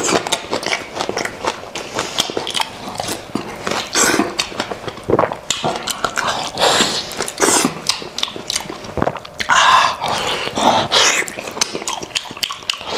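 A person eating goat's head meat by hand, sucking and biting it off the bone: a dense run of short wet smacks and clicks.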